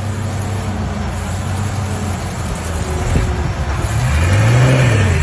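Heavy dump truck's diesel engine running hard while bogged in deep mud, with a steady low drone; about four seconds in the revs rise and fall back once as it gets louder.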